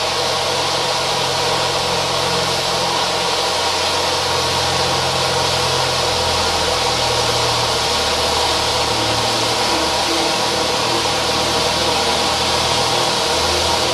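TROPIC gold firework fountain (T1 category) burning with a steady hissing rush and a low hum underneath.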